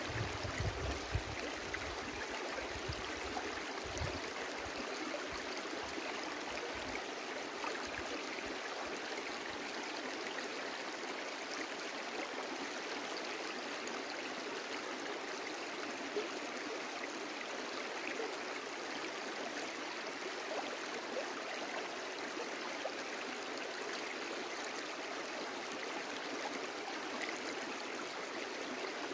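Small brook flowing steadily. A few low bumps come in the first several seconds.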